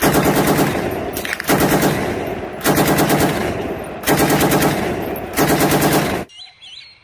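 Electronic machine-gun firing sound effect: rapid shots over a steady buzzing tone, in about five bursts back to back, cutting off sharply near the end.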